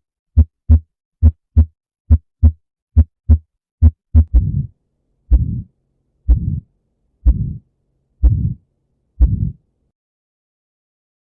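Recorded heart sounds heard through a stethoscope. At first, crisp lub-dub pairs repeat a little faster than once a second with nothing between them. From about four seconds in, each beat is followed by a noisy heart murmur lasting about a third of a second, once a second, until the sound stops briefly near the end.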